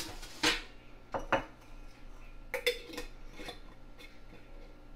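Metal canning lid and ring clinking against a glass mason jar of milk as they are fitted and screwed on: several short, light clinks and taps, a second or less apart.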